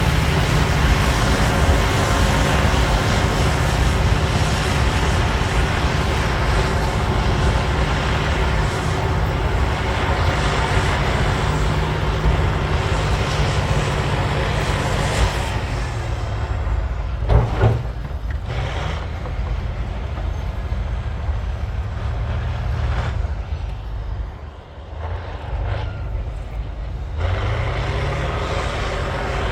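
Cat D9L bulldozer's V12 diesel engine working hard under load, with heavy machinery clatter. About halfway through the engine drops back and the noise thins out, with one brief loud knock, then it revs back up near the end.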